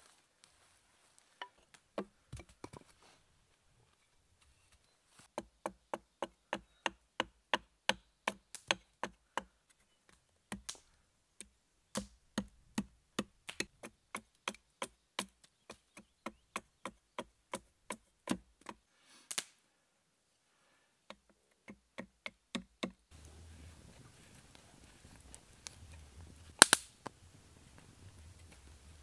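Hatchet chopping a hand-held wooden stick: sharp, regular knocks about two a second, in two runs with a short pause between them. After that a faint outdoor background with one sharp click near the end.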